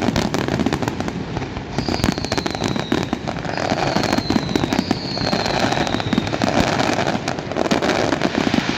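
Fireworks display going off in a rapid, continuous barrage of bangs and crackling, with three falling whistles a few seconds in.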